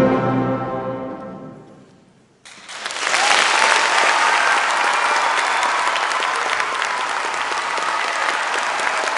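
An orchestra's final chord fades away over about two seconds. After a brief hush, the audience starts applauding suddenly and keeps clapping steadily.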